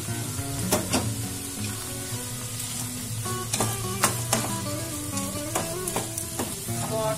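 Spatula stirring and scraping through greens and chana dal frying in a kadai: a steady sizzle broken by about ten short scrapes and knocks against the pan. Background music plays underneath.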